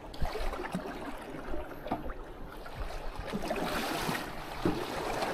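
Choppy waves slapping and splashing against the stern of a small fishing boat, with wind buffeting the microphone. The splashing grows louder near the end as water sprays up over the back of the boat.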